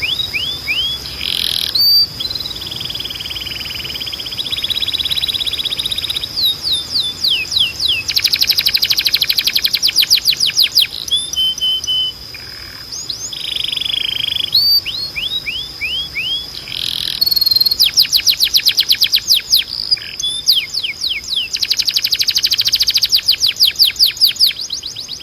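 Canary singing: rapid trills of fast-repeated notes alternating with slower series of downward-sweeping whistled notes, broken by short pauses, over a steady high tone.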